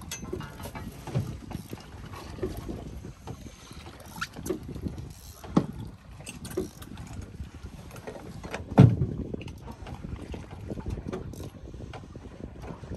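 Water washing against the hull of a fishing boat at sea, with scattered knocks on the boat and one heavy thump about nine seconds in.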